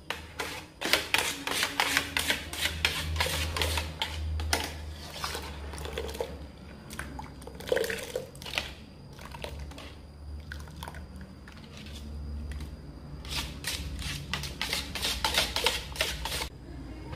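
A wire whisk stirring foamy dish-soap solution in an aluminium pot, with irregular rapid clicks and scrapes against the metal and sloshing and splashing of the liquid.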